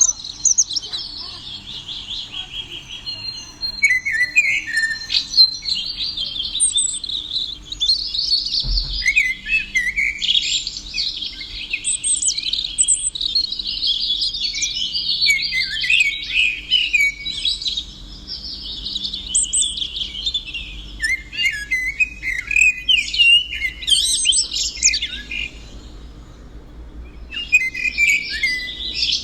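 Songbirds chirping and warbling in a continuous, rapid, high-pitched song, with a short lull near the end. A single low thump comes about nine seconds in.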